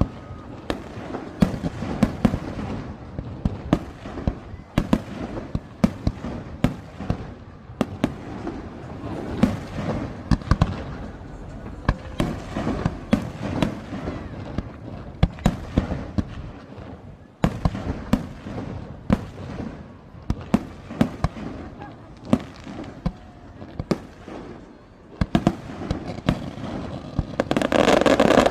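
Fireworks display: a long irregular string of bangs and bursts, sometimes several a second, over a background of murmuring voices. Near the end a louder steady rushing noise sets in.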